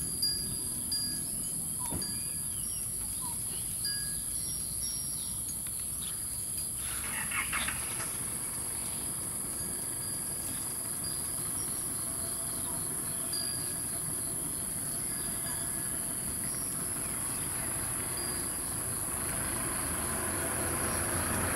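Rural outdoor ambience: a steady high-pitched drone with a few short chirps, and a vehicle growing louder near the end.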